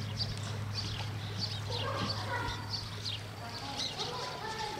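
Birds chirping over and over in short, quick calls, with a steady low hum underneath.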